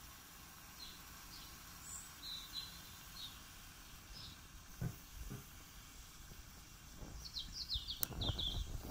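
Small birds chirping, short high calls scattered throughout with a quick run of chirps near the end. A low thump about five seconds in and low rumbling near the end.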